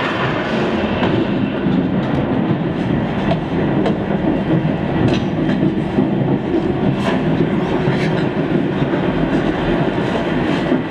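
A train running on rails, as heard from inside a passenger carriage: a steady rumble with a few scattered clicks from the wheels.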